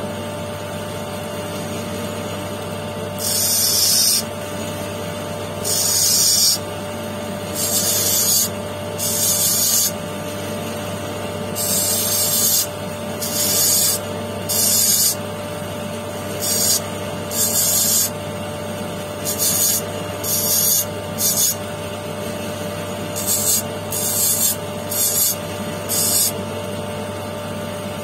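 Small electric motor spinning a lapidary wheel with a steady hum, while a quartz stone is touched to the wheel again and again: about seventeen short hissing bursts of stone on the wheel, each under a second, coming quicker and shorter toward the end.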